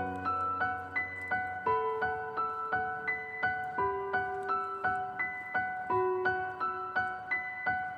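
Background music: a gentle, soft piano-like keyboard melody of short repeated notes, several a second, over a few held lower notes.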